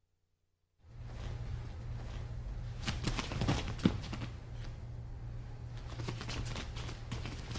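Bare feet shuffling and stepping on a training mat, with scattered light taps, over a steady low hum. The sound comes in suddenly about a second in.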